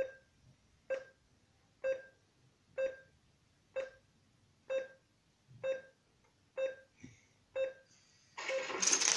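Short electronic reversing-alarm beeps, about one a second, from the coding app that drives a LEGO robot recycling truck, warning that it is backing up. Near the end there is a loud rattling clatter as the truck tips out its load of small plastic pieces.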